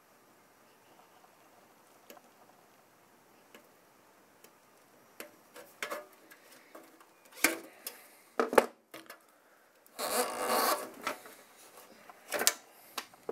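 Side cutters clicking and snapping as they cut and strip insulation off electrical wires, with scattered sharp clicks. There is a denser rustling scrape about ten seconds in as the insulation is pulled off.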